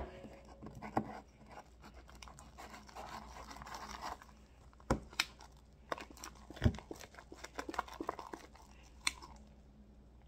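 Slime being worked in a bowl with a spoon: soft sticky stirring noise with scattered clicks and knocks as the spoon taps the bowl.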